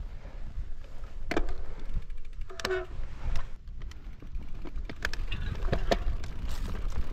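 Wind rumbling on the microphone of a bike ride on a rough trail, with scattered clicks and rattles from the bike and a couple of brief squeaks.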